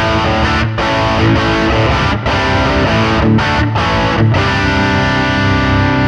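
Electric guitar played through a Demonfx King of Drive dual overdrive pedal with one side engaged: distorted chords with a few short breaks between them, then a chord held and left to ring.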